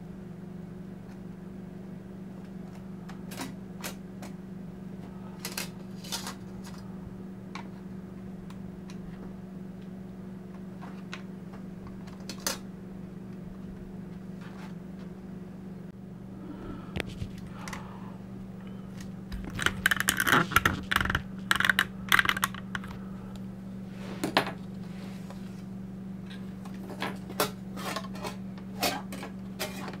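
Hand disassembly of a laptop: its screws and thin metal shield plates clicking and clinking at scattered moments, with a dense flurry of metallic clattering a little past the middle. A steady low hum runs underneath.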